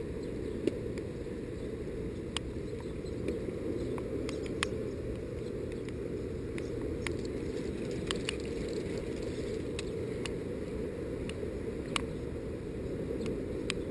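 Steady low rush of fast river water flowing out below the dam, dull and muffled, with no high hiss. A dozen or so small sharp clicks and ticks come at irregular times over it.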